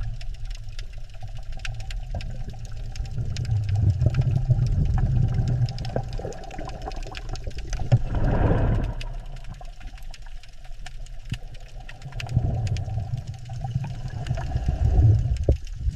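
Muffled underwater ambience: a steady low rumble with faint scattered crackles. About eight seconds in, a whooshing swell rises and dies away.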